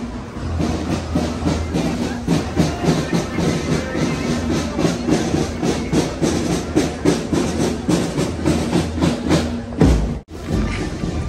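Marching band music: a melody over a steady drumbeat. The sound drops out abruptly for a moment about ten seconds in, then resumes.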